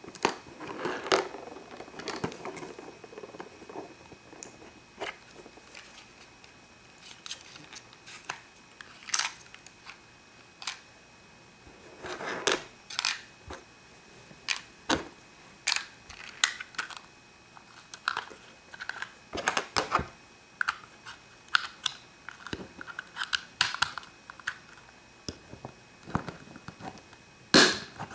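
Small hard-plastic toy playhouses and their tiny furniture pieces being handled and folded shut: irregular clicks, taps and light rattles of plastic on plastic, with the sharpest click near the end.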